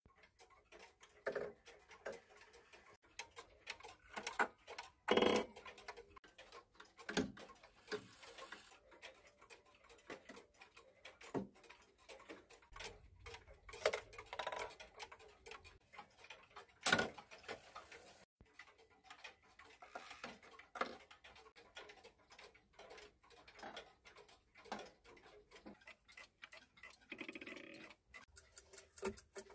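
Mechanical pendulum clocks ticking, with louder clicks and short rattles scattered through as their hands are pushed round toward five minutes before the hour. The rack-and-snail strike trains go into warning: a click, then a brief whirr as the rack drops.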